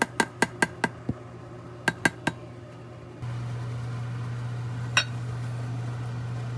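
Kitchen utensil sounds: a quick run of light clicks or taps, about five a second, then three more around two seconds in, and a single ringing clink of glass or metal about five seconds in. A steady low hum drops out early and comes back about three seconds in.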